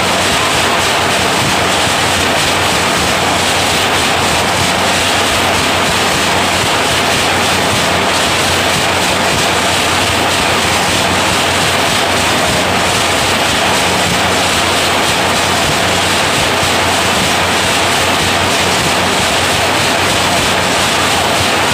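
Automatic wire nail making machine running at speed: a loud, continuous, rapid clatter with a steady low hum underneath.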